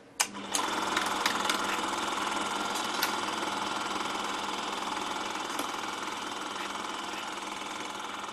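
Steady mechanical clattering with a low steady hum, opening with several sharp clicks in the first three seconds and slowly fading.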